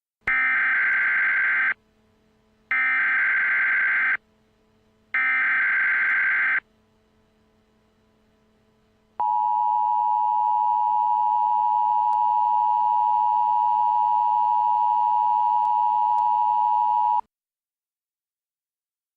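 Emergency Alert System alert opening. Three identical digital header bursts, each about a second and a half long with short gaps between them, are followed by a pause and then the two-tone attention signal, held steady for about eight seconds before it cuts off. It announces an emergency alert.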